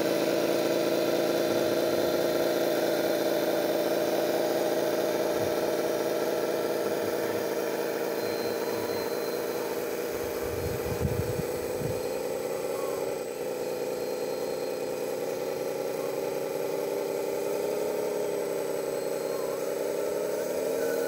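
Radio-controlled scale model of a Caterpillar D9T bulldozer running as it drives and turns, with a steady machine hum that shifts slowly in pitch.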